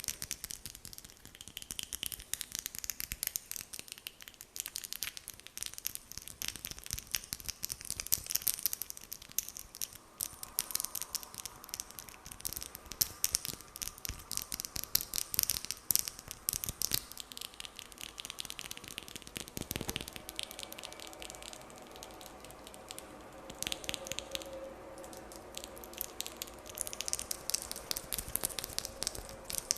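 Fingernails tapping and scratching on a hand close to the microphone: a dense, rapid run of crisp clicks.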